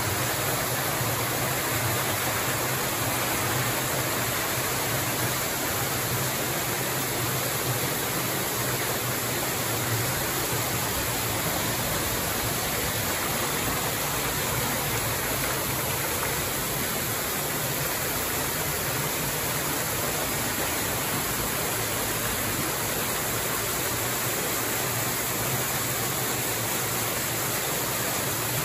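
Steady rush of a waterfall and stream pouring into a rock-walled canyon pool, an even, unbroken noise with no changes.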